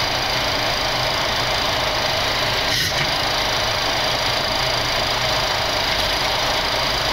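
Steady cockpit noise of a Boeing 737 on short final after minimums: a constant rush of airflow with the hum of the engines at approach power. A faint tap about three seconds in.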